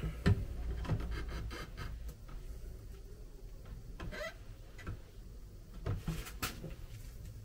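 Quiet, scattered light taps and scratches of a pencil marking three screw-hole positions for a towel holder's wall fitting.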